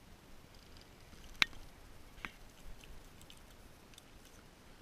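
A few sharp clicks and taps from handling the spinning rod and reel while a small chub is landed: one loud click about a second and a half in, a softer one a moment later, then a few faint ticks over a quiet background.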